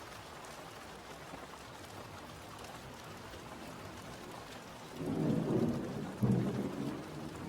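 Steady rain falling, with a low roll of thunder rising about five seconds in and a second sharper clap just after, rumbling away.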